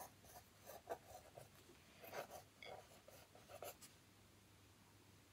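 Faint scratching of a pencil sketching on paper in a string of short, quick strokes, stopping about four seconds in.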